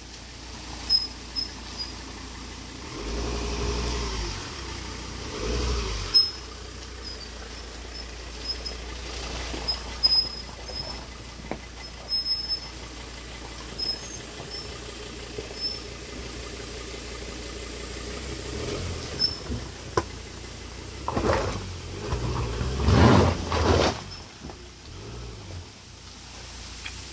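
Ford Endeavour SUV crawling over a rocky, muddy off-road trail: the engine runs low and steady while stones click and crunch under the tyres. The engine comes up briefly a few seconds in and again, loudest, near the end as the SUV climbs over the rocks.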